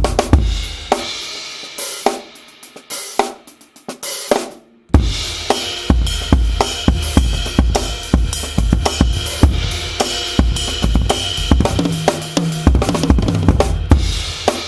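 Drum kit with Meinl Byzance cymbals, recorded through a Yamaha EAD10: an opening cymbal crash rings and fades under a few light strokes, then about five seconds in the full kit starts a steady groove of bass drum, snare, hi-hat and ride or crash cymbals.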